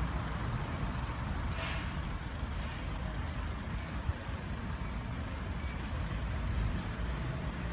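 City street traffic: a steady rumble of vehicles on the road, with a short hiss about a second and a half in.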